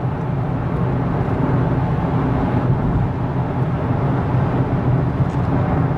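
Steady road and engine noise inside the cabin of a car driving in traffic, a constant low drone.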